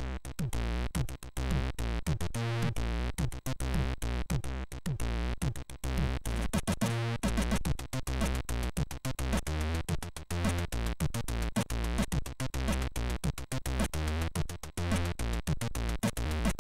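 Commodore 64 SID chip music: synthesizer tones over a stepped bass line, with sharp noise-drum hits keeping a steady beat.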